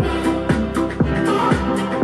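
Music played through a JBL Bar 2.0 compact soundbar streaming from a phone, with a steady beat and a deep kick drum that drops in pitch about twice a second.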